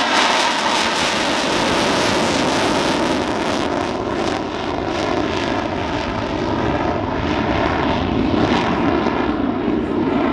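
Boeing EA-18G Growler's twin General Electric F414 turbofans in afterburner, a loud continuous jet roar as the jet climbs away, with a crackle setting in about four seconds in.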